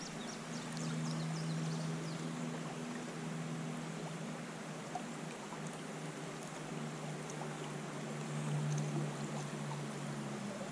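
Shallow river water running over a riffle, a steady rushing hiss, with a low steady hum underneath.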